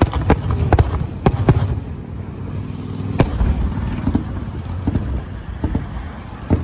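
Aerial firework shells bursting: a quick run of sharp bangs in the first second and a half, then one more loud bang about three seconds in and a few fainter ones, over a steady low rumble.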